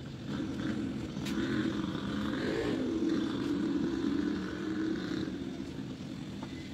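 Engine of a passing motor vehicle, growing louder over the first couple of seconds and then fading away.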